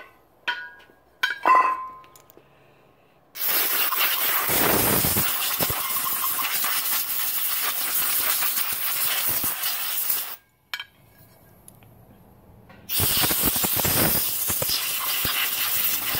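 A few metallic clinks from the aluminum clutch parts being handled, then compressed air hissing from a blow-gun nozzle in a long blast of about seven seconds, blowing belt dust out of a snowmobile roller secondary clutch. A second blast starts near the end.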